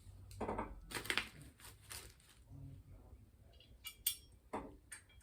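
A series of light metal clinks and knocks as screws, washers and a steel bracket are handled and fitted during bike assembly, the sharpest about a second in and around four seconds in.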